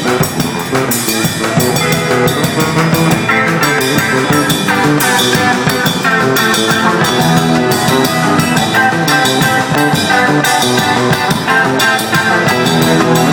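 Rock band playing an instrumental passage of a song, guitar over a steady drum-kit beat, with no singing.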